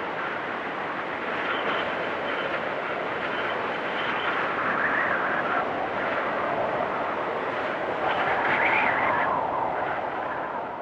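Storm wind rushing steadily in strong gusts, with whistling that swells and rises in pitch about halfway through and again near the end.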